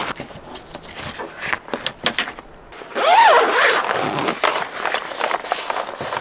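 Zipper on a fabric sun-visor mosquito-net cover fitted over an open car door, drawn along in one long zip about three seconds in, its pitch rising and falling as it goes. Light fabric rustling and handling clicks come before it.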